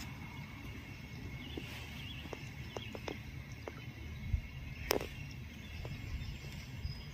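Outdoor background noise: a steady low rumble with scattered faint clicks and ticks, the sharpest a little under five seconds in.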